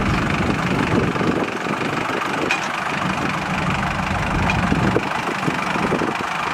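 HMT 5911 tractor's diesel engine running steadily under load as it pulls a cultivator through the soil.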